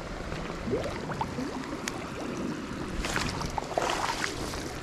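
Creek water splashing and sloshing as a landing net is pushed through it, with two louder splashes about three and four seconds in.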